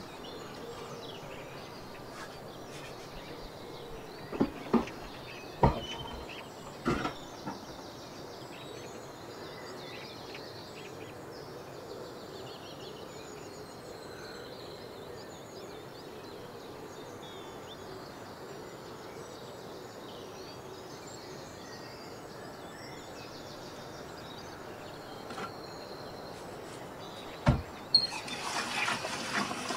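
Quiet steady background with faint birdsong from outside, broken by a few sharp knocks in the first seven seconds. About two seconds before the end the cold tap is turned on and water rushes into an electric kettle.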